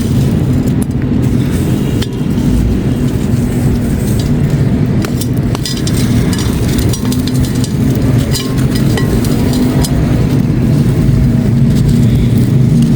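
Chunks of grey concrete being crushed and crumbled: a dense, continuous crunching with scattered sharp clicks over a steady low rumble.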